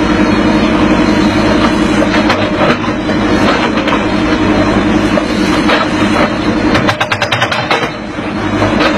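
Excavator engine running steadily as the bucket digs and scrapes through stony soil. A quick clatter of knocks comes about seven seconds in.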